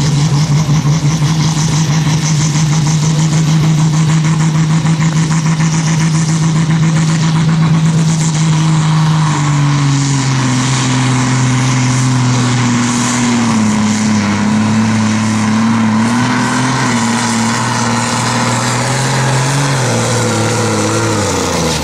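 Diesel engine of a modified Super Sport class pulling tractor running flat out while dragging a weight-transfer sled. Its pitch holds steady, drops about nine seconds in and wavers as the engine labours under the building load, then falls away sharply near the end as the pull finishes.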